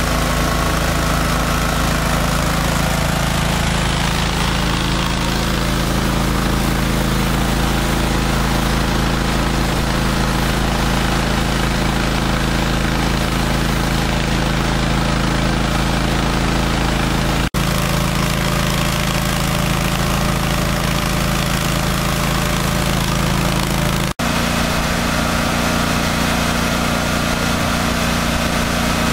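The 30 hp Kohler engine of a truck-mounted 3,500 PSI hot water pressure washer running steadily. The sound breaks off for an instant twice, about two-thirds of the way in and again near the end, with the pitch a little changed after the second break.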